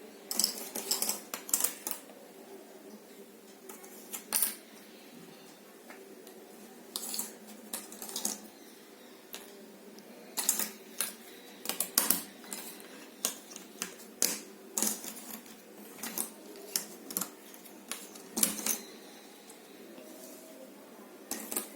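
Jigsaw puzzle pieces clicking and tapping as they are handled and pressed into place, in irregular clusters of sharp clicks with pauses between.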